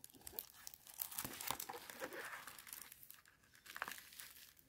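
Diamond painting canvas crinkling and rustling as hands unfold it and smooth it flat, with a brief louder crackle just before the end.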